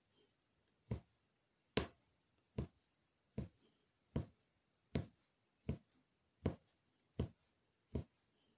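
Embroidery needle punching through fabric stretched tight on a frame: a steady run of ten short popping taps, one about every 0.8 seconds, one for each stitch.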